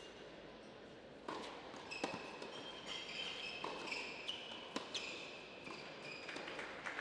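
Tennis rally on an indoor hard court: a few sharp racket strikes on the ball, spaced about a second apart, starting about a second in. Shoes squeak on the court surface between the hits.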